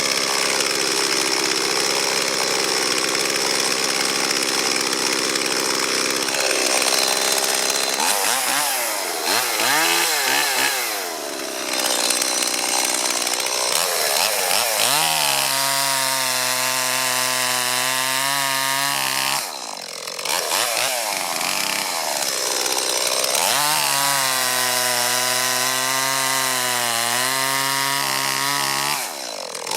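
Stihl MS 170 two-stroke chainsaw running hard and cutting into a eucalyptus log, its engine note rising and falling as the chain loads and frees in the wood. The revs dip briefly twice, about two-thirds of the way through and again near the end.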